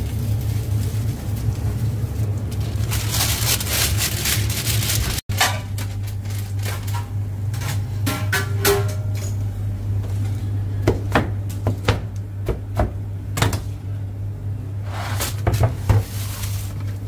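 Music over a steady low hum, with scattered clicks and knocks; the sound drops out for an instant about five seconds in.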